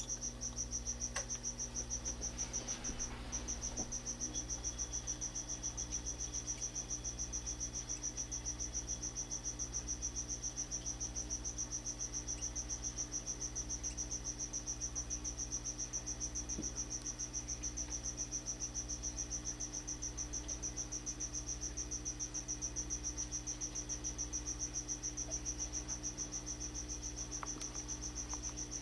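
A cricket chirping in a continuous high trill, with a low steady hum underneath.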